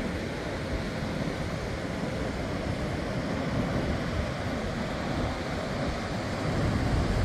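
Ocean surf washing steadily onto a beach, with wind rumbling on the microphone.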